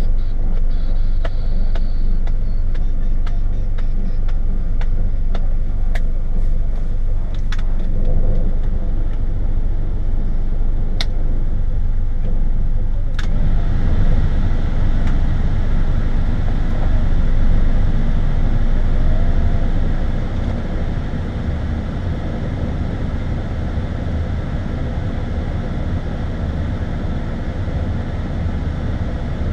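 Car engine idling steadily, heard inside the cabin, with a few light clicks in the first half. About thirteen seconds in, the cabin ventilation fan comes on with a steady rush of air.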